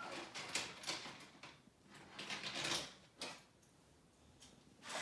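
Plastic toy car wash playset being handled: irregular clicks, rattles and scrapes of plastic parts for the first three seconds or so, then a near-quiet stretch.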